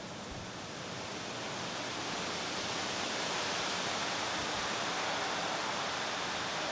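A steady, even hiss with no distinct events, growing a little louder about two seconds in and then holding.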